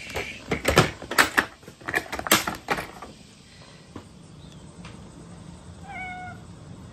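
Hard plastic pet carrier clattering as it is handled, a quick run of sharp knocks and clicks in the first three seconds. About six seconds in, a short single meow.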